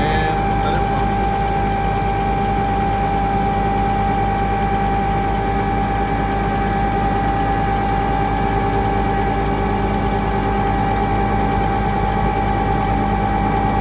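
Jet fuel truck's engine running steadily, driving its fuel pump through the PTO while fuel is pumped through the meter. A constant drone with a steady high-pitched tone on top.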